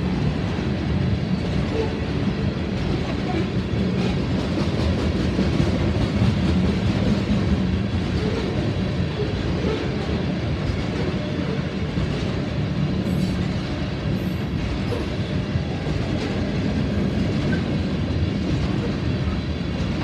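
Freight train of oil tank cars rolling steadily past: a continuous rumble of steel wheels on the rails.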